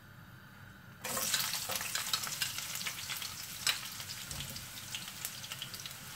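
Sliced onions hitting hot oil in a non-stick wok: a sudden sizzle starts about a second in and goes on crackling, with a sharp click near the middle, as a spatula stirs them near the end.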